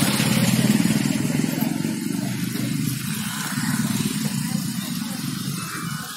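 Bus engine running, its sound getting gradually quieter over the few seconds.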